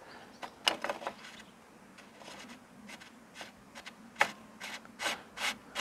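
Sealed bearing bottom bracket cup being screwed by hand into a bicycle frame's bottom bracket shell: faint, scattered clicks and light rubbing of the threads.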